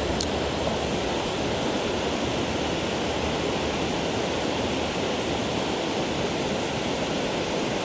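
Steady rushing noise of water pouring over a dam.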